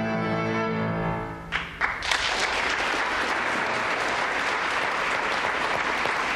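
Viola and piano holding a final chord that dies away about a second and a half in, followed by the audience breaking into steady applause.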